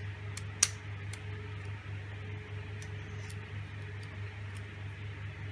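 A few light clicks and taps of a utility knife blade against a 3D-printed plastic strip as glue is smeared along it, one sharper click just over half a second in, over a steady low hum.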